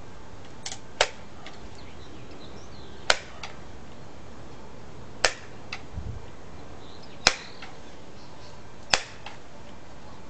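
Crosman M4-177 multi-pump air rifle being pumped: five sharp clacks about two seconds apart, one for each stroke of the forend as it builds air pressure for a shot, with fainter clicks in between.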